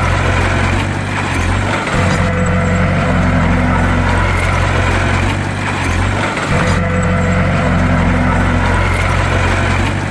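Bulldozer's diesel engine running steadily with a low drone, easing off briefly about every four and a half seconds.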